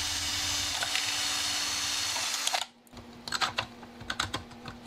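A steady hiss with a faint low hum for about two and a half seconds that cuts off abruptly. Then light, scattered clicks and clacks of hard plastic parts being handled during the disassembly of a 3D-printed gearbox.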